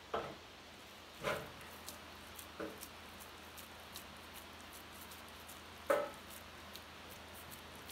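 Hands squeezing and shaping minced-meat seekh kebab onto a flat metal skewer: soft squishing and small clicks, with four short louder knocks or handling sounds, the loudest about six seconds in.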